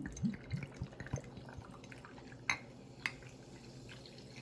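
A drink glugging as it is poured from a bottle into a glass: a quick run of short rising gulps over the first second or so, then two light clinks.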